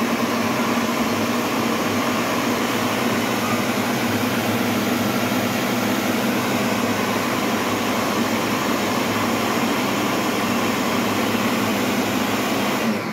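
Ninja countertop blender motor running at a steady speed, blending soaked beans into akara batter; it stops right at the end.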